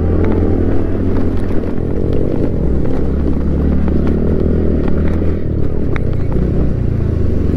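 Scooter engine running steadily while riding an off-road track. Its drone shifts in pitch a couple of times, with occasional knocks and clatter from the rough ground.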